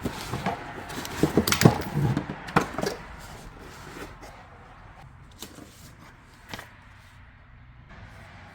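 Packaging being handled during unboxing: a busy run of clicks, knocks and rustles for about three seconds, then a few scattered taps.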